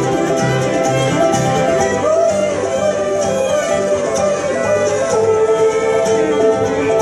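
Live bluegrass band playing: fiddle, banjo, acoustic guitar and upright bass together, with some sliding notes in the middle.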